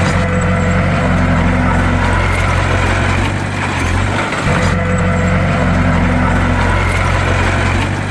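Heavy diesel engine of a bulldozer running steadily with a deep hum. The sound goes in a repeating cycle about every four seconds, with a brief dip between cycles.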